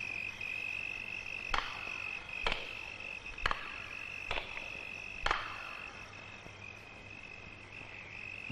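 Crickets chirring steadily in a night-time soundtrack, with five slow, sharp footsteps of sandals on a hard floor about a second apart, from about one and a half seconds in to just past five seconds.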